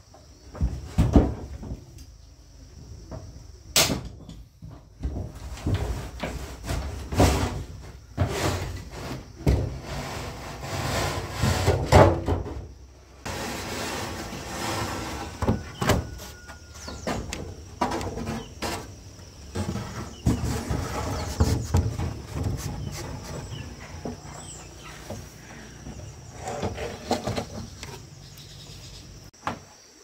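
Irregular knocks, bumps and scraping of hard objects being handled and moved.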